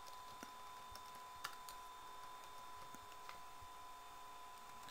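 Faint computer keyboard keystrokes, a few scattered clicks, as a user name and password are typed in, over a faint steady tone.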